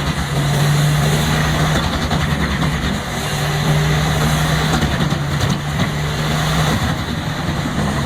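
Large industrial wood chipper's engine running steadily under load as it works through timber, with a low drone that drops out briefly a few times.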